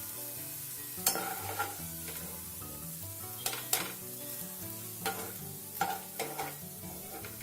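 Grated potato shreds (aloo kutri) deep-frying in hot oil in a kadhai, a steady sizzle, with several sharp metal clinks of a utensil against the pan as the batch is stirred and lifted out.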